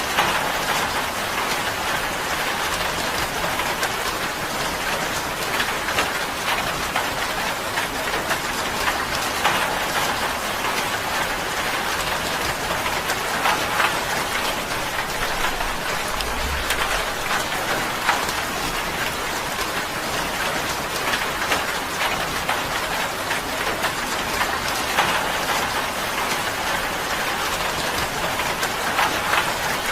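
Steady rain drumming on a tin roof: a dense, even patter with many sharper individual drop hits on the metal.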